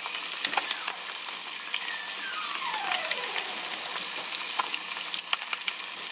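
Walleye fillets frying in butter in a small nonstick pan: a steady sizzle with constant crackling pops. About two seconds in, a faint tone glides downward for about a second.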